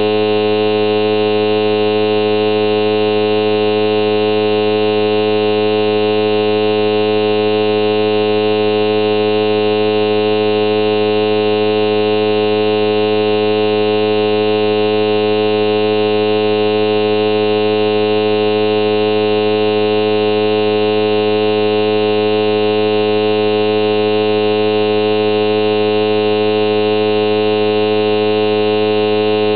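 A loud, steady electronic buzz made of many fixed pitches at once, holding unchanged without a break.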